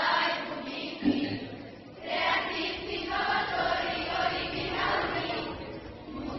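A children's school choir singing together, with a short break between phrases about a second in before the voices come back in.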